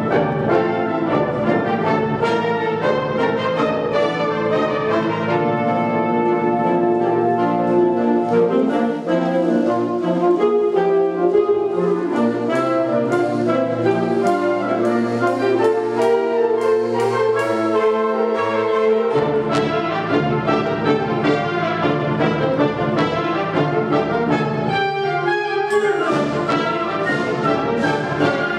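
Symphonic wind band (concert band) playing, brass to the fore over woodwinds and percussion. The deep bass drops out about two-thirds of the way through.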